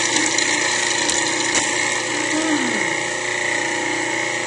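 Cuisinart Pro Classic food processor running steadily, its motor and blade grinding a heavily loaded bowl of raw cauliflower, parsnip and almonds.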